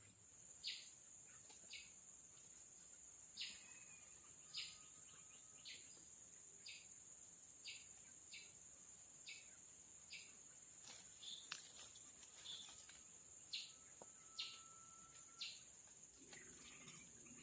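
Steady high-pitched insect drone of a tropical forest, with short repeated calls about once a second over it.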